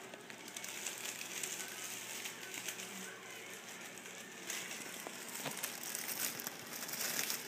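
Clear plastic bag crinkling and rustling as hands gather and twist it closed around a turkey, busier and louder from about halfway through.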